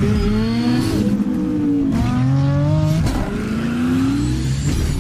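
Engine revving sound effect: a loud engine revving up about three times, each rev a rising whine.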